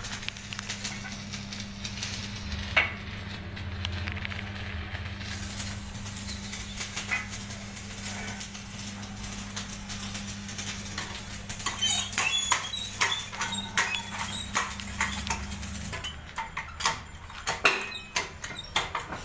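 A steady electric hum that cuts off about sixteen seconds in, with metal-on-metal clicks and clinks growing in the last few seconds, as a wheel hub is set under a workshop hydraulic press to push out a worn wheel bearing.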